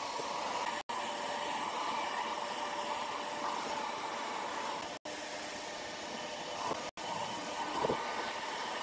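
Electric heat gun blowing steadily, its fan and heater running at a constant pitch as it scorches the wood. The sound breaks off for an instant three times.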